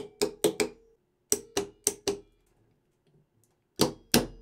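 Heavy electromagnetic starter contactor clacking in and out as its coil is switched by hand: four sharp clacks in the first second, four more a little later, then a quick run of clacks near the end.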